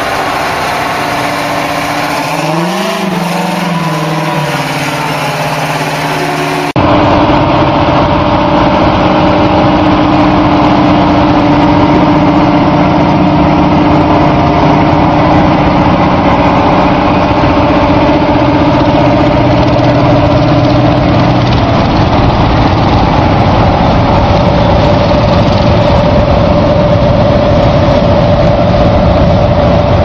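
Big Bud 16V-747 tractor's Detroit Diesel 16V-92 diesel engine running, rising in pitch and falling back about three seconds in. After an abrupt cut about seven seconds in, it is louder and steady as the tractor drives by.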